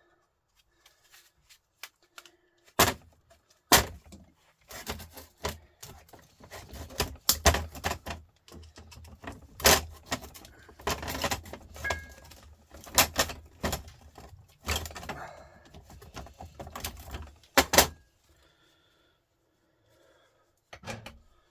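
Metal parts of a Volvo truck starter motor clattering and knocking as it is worked apart by hand, with a run of sharp knocks and rattling that starts about three seconds in and stops a few seconds before the end.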